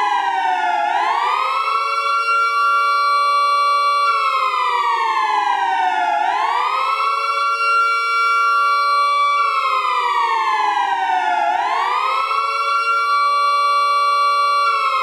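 Civil-defence air-raid siren, sped up and so pitched higher, sounding two tones together. The wail rises quickly, holds for about three seconds, then glides slowly down before rising again, three rises in all.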